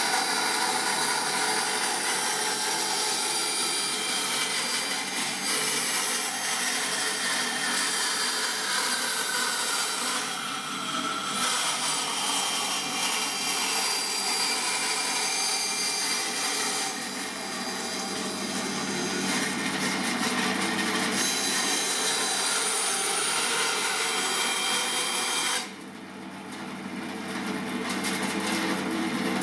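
Record Power BS350S 14-inch bandsaw cutting through a wooden board fed by hand along the fence, the blade's rasp over the steady running of the motor. About 26 seconds in the cut finishes and the saw runs on free.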